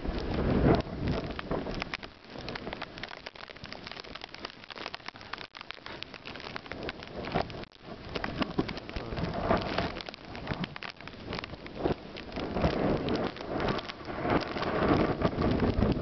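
Footsteps crunching and rustling through deep fresh snow, a dense crackling that comes and goes, with low rumbles of wind on the microphone.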